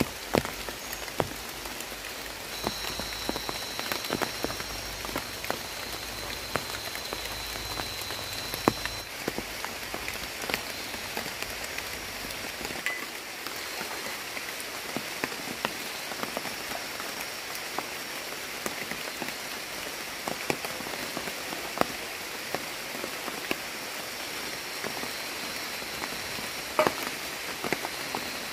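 Light drizzle falling on a camp tarp and forest leaves, with many scattered drips tapping.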